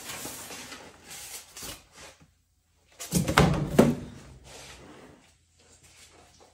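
Faint rustling and handling, then a short cluster of knocks and thuds about three seconds in as packing foam and parts are handled and set down.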